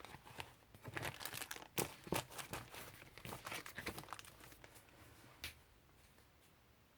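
Packaging being handled, crinkling and rustling in quick irregular crackles for about five seconds, then stopping.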